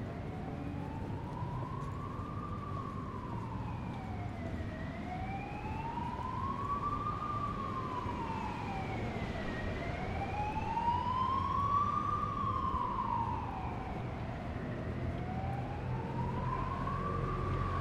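Emergency vehicle siren wailing, its pitch rising and falling slowly, about five seconds per cycle, over street traffic; it grows somewhat louder toward the middle and eases off again.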